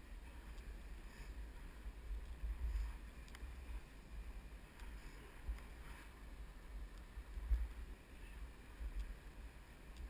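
Low, uneven wind rumble on an action camera's microphone while being towed uphill on a ski drag lift, with faint scattered clicks.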